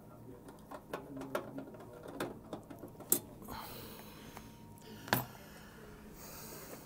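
Hands working on a microwave's sheet-metal housing: scattered light clicks and taps, with two sharper metallic clicks about three and five seconds in.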